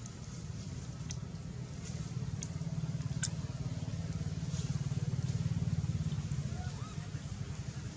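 A low, steady engine rumble that swells to its loudest past the middle and eases off near the end, with a few faint clicks in the first half.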